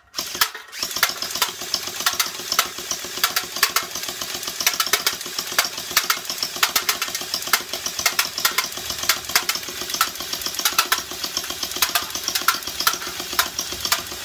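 Electric 74U mini-AK gel blaster firing a long burst on full auto. Its motor and gearbox whir without a break, with a rapid stream of sharp clicks as the gel balls are shot.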